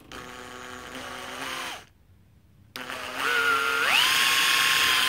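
Cordless drill with a small bit, about 2.5 mm, drilling a hole through an LED light bulb's body. There is a short run that stops just under two seconds in. A second run follows, and its motor whine climbs in two steps to full speed and holds steady.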